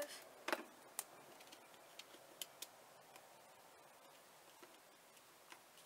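Paper embellishments and a small adhesive dispenser being handled on a tabletop: a handful of faint, light clicks and taps, most of them in the first three seconds, with quiet in between.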